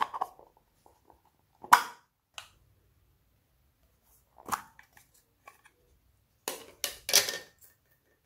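Small plastic containers of foam beads being handled: a few sharp plastic clicks and clatters, the loudest about two seconds in, another midway and a short cluster near the end.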